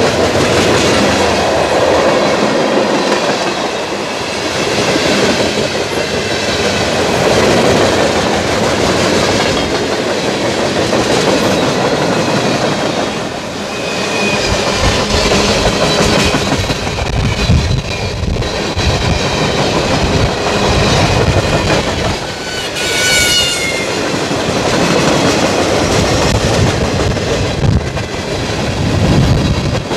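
Freight cars of a mixed freight train rolling past close by, steel wheels clattering over the rails in a steady rumble. A brief high-pitched wheel squeal rings out about two-thirds of the way through.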